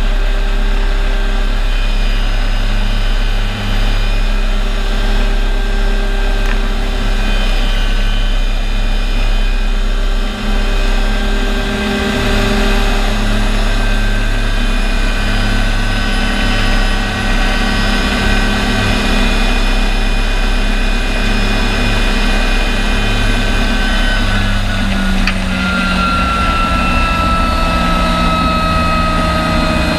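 Small helicopter's engine and main rotor running, heard from inside the open cockpit: a loud, steady drone with a high whine. In the last few seconds the whine begins to fall slowly in pitch as the engine winds down.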